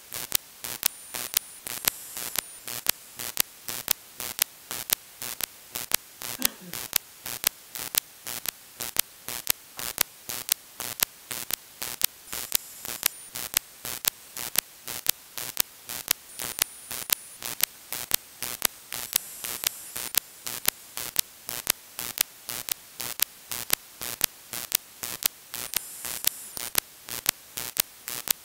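Radio-frequency interference on the 2-metre amateur band, heard through a software-defined radio receiver in upper-sideband mode. Steady static hiss broken by sharp, regular pops, about two a second.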